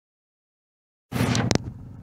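Polaris 500 ATV's single-cylinder four-stroke engine. Sound cuts in abruptly about a second in as a brief loud burst with a sharp click, then settles into a low, steady run.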